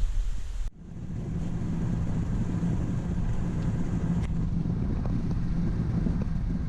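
A vehicle driving at a steady speed: a low, even engine and road rumble. It follows a brief stretch of wind noise at the start.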